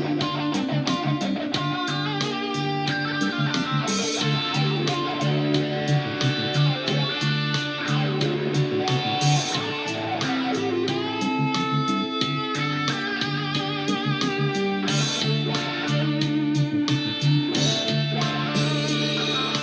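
Guitar being played, a run of single plucked notes and chords over sustained low bass notes, with some wavering, vibrato notes near the middle.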